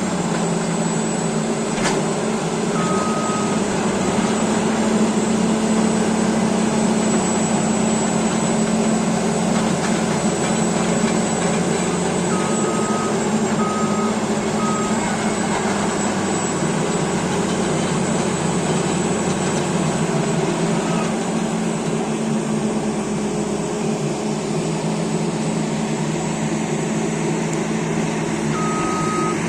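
Caterpillar D8T bulldozer's diesel engine running steadily at work, with a faint high whine. A reverse alarm beeps once about three seconds in, three times around the middle, and twice near the end, the sign of the machine backing up.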